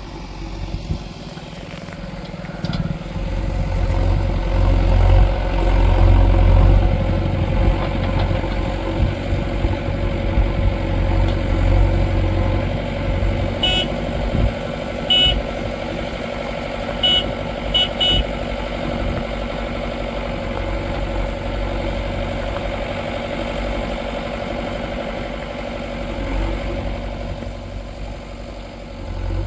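Diesel engine of a JCB 3DX backhoe loader running under load, louder for a few seconds early on and then steadier. A handful of short high beeps sound about halfway through.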